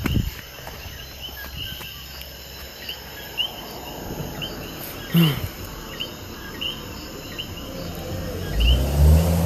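Night insects chirping in short repeated calls, about one or two a second. About five seconds in there is a brief, sudden, louder sound that falls in pitch. Near the end a loud low drone starts up and grows.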